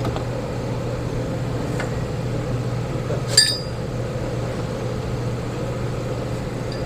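A metal tool or part clinks once with a short bright ring about halfway through, over a steady low background hum.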